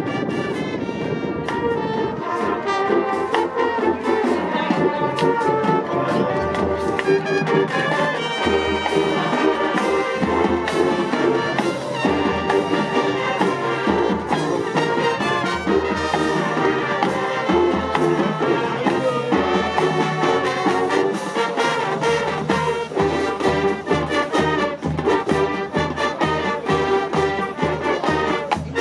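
Marching band playing on the field: the brass section holds loud chords over a steady drumline beat.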